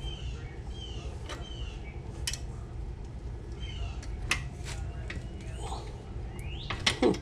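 Short high chirps, each falling in pitch, come every second or so. Scattered sharp metal clicks and taps from wrenches on the ATV's swing arm bolts sound among them.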